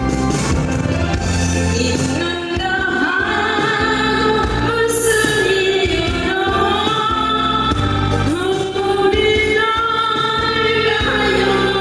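A woman singing a Korean ballad with long held notes that slide between pitches, over instrumental accompaniment.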